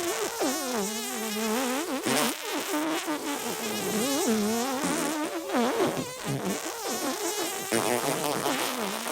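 Edited, pitch-warped fart sound effects layered into a continuous wavering buzz whose pitch keeps sliding up and down.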